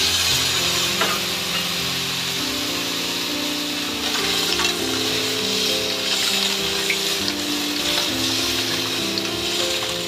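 Clams cooking in oil and just-added hot water in a stainless steel skillet: a steady sizzling hiss with a few faint clicks.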